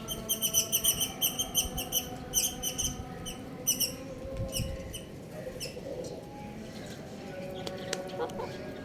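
Young chicken peeping: a rapid run of short, high chirps, about four or five a second, for roughly the first four seconds, then fainter and more scattered.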